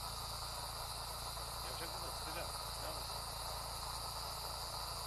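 Steady, high-pitched insect chorus shrilling without a break.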